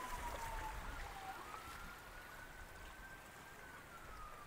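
Faint whine of a spinning reel being cranked on a lure retrieve, its pitch sinking slowly, jumping up about a second in, then sinking again, over a faint wash of water.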